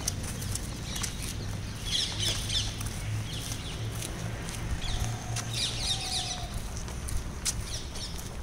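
Birds chirping in two short bursts of quick high notes, about two seconds in and again around six seconds in, over a steady low hum.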